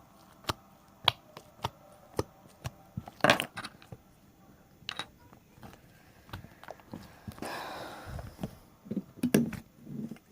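Glitter slime being squeezed and worked by hand, giving a string of sharp popping clicks from trapped air, with a longer squelch about three-quarters of the way through.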